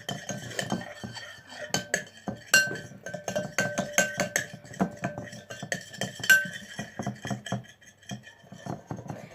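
A spoon stirring glue and paint in a plastic bowl, with many quick irregular clicks and scrapes of the spoon against the bowl, while faint music plays.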